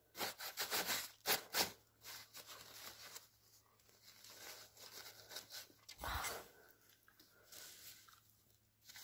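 Old newspaper sheets handled by hand, crackling, rustling and tearing. There is a cluster of sharp crackles in the first two seconds and another about six seconds in, with quieter rubbing between them.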